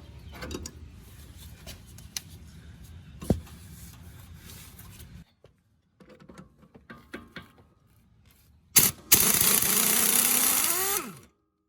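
Tool work on a strut bolt: scraping and clicks with a single knock, then a power impact wrench runs for about two and a half seconds near the end, spinning the loosened 14 mm bolt out, and winds down in pitch as it stops.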